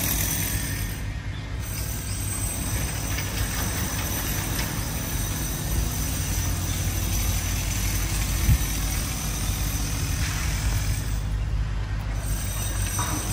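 Steady low rumble of outdoor street noise, with a single thump about eight and a half seconds in.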